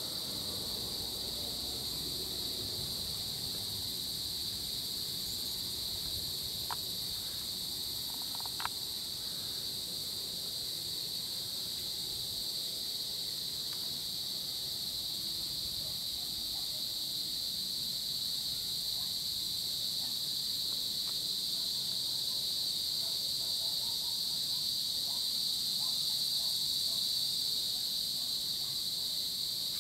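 Insect chorus, crickets trilling in a steady high-pitched drone. Two short sharp chirps stand out briefly about seven and nine seconds in.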